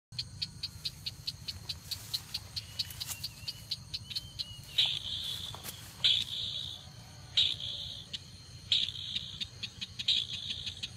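Crake calling: a fast, even run of hard ticks, about five a second, that gives way about five seconds in to a harsh rattling call repeated roughly every second and a half.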